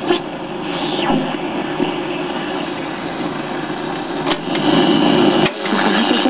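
Philips B2F80A AM valve radio's loudspeaker giving out hiss and static between stations while it is being tuned. A falling whistle comes about a second in. Near the end there are two sharp clicks as its pushbuttons are pressed.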